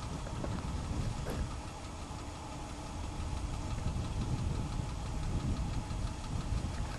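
Vehicle engine idling steadily with a low rumble.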